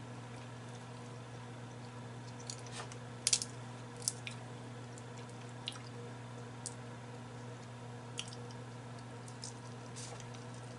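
Crab-leg shell being picked apart by hand: scattered short clicks and wet squishes of the shell and buttery crab meat, the sharpest about three seconds in, over a steady low hum.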